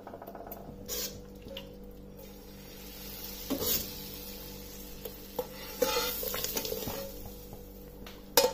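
Hot desi-ghee tempering of whole red chillies and ajwain sizzling as it goes into dal in a steel pressure cooker. A metal spoon scrapes the last of it out of a frying pan, with scattered scrapes and clinks of spoon on metal and a sharp clink near the end.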